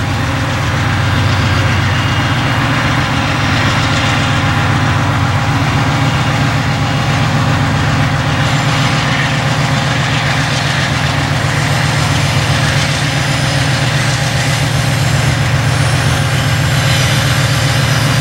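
Two diesel-electric freight locomotives approaching, their engines running with a steady deep drone that grows slightly louder as they come nearer.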